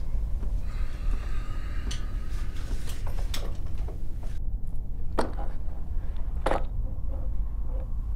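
Kitchen handling sounds: a handful of sharp knocks and clacks of things being moved and set down on a counter, the loudest about five and six and a half seconds in, over a steady low rumble.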